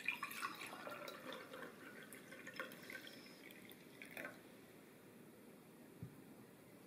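Lemonade poured from a glass carafe into a glass tumbler, splashing for about four seconds until the pour stops. Near the end the carafe is set down with a single soft knock.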